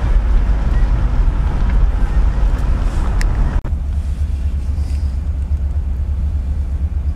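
Steady low rumble of a car driving slowly, heard from inside the car. About three and a half seconds in the sound briefly cuts out, and afterwards the higher hiss is quieter.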